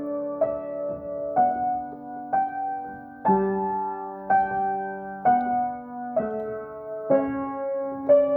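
Acoustic piano played in a slow, calm improvisation, one chord or note struck about every second and left to ring into the next.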